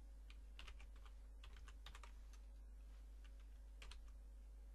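Computer keyboard being typed on: faint, irregularly spaced key clicks, a dozen or so, over a steady low hum.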